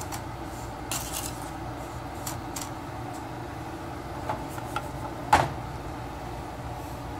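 Wooden spoon stirring and scraping dry granulated sugar in an aluminium pot, making scattered light scrapes and clicks, with one sharp knock about five seconds in, over a steady low background hum.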